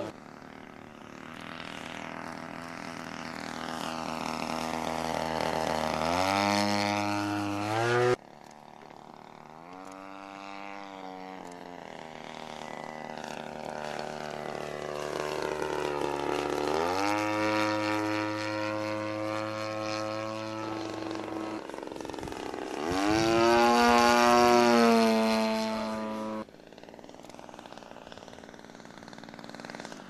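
The single-cylinder two-stroke petrol engine and propeller of a model Focke-Wulf Fw 190A (a DLE 30cc engine) running in flight. The engine note rises in pitch three times as the model throttles up or passes close, and is loudest about 23 seconds in. The sound changes abruptly about 8 and 26 seconds in.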